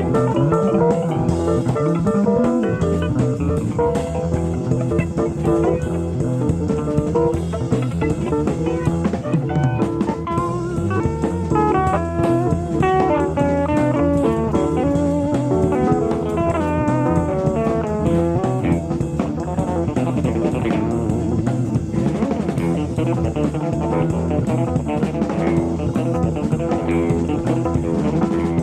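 Live jazz-fusion band recording: guitar playing quick runs of notes over bass guitar and drum kit. The top end is dull, as from a cassette taped off an FM broadcast.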